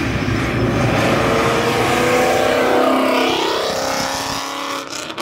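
A car accelerating hard past with its engine revving, the pitch gliding through the gears, then fading as it moves away near the end.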